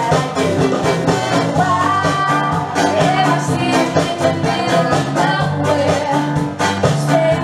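Upbeat pop song with singing over a steady, even beat.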